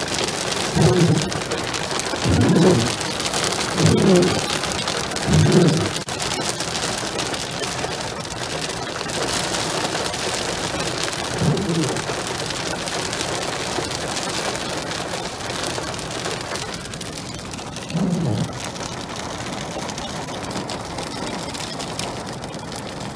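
Hail mixed with rain pelting a car's windshield and body, heard from inside the car: a dense, steady patter of small hard impacts. A few short low-pitched sounds stand out above it, several early on and a couple more later.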